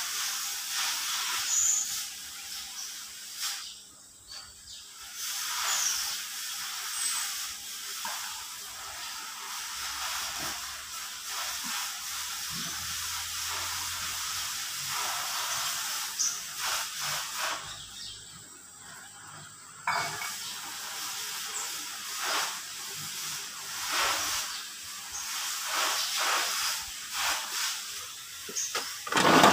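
A hiss with scattered metal clinks and knocks from handling an engine block hanging from a shop crane.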